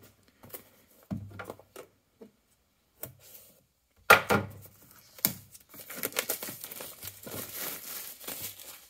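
Clear plastic shrink-wrap on a cardboard product box being torn open and peeled off: a few faint rustles, a sharp loud rip about four seconds in, then steady crinkling of the film.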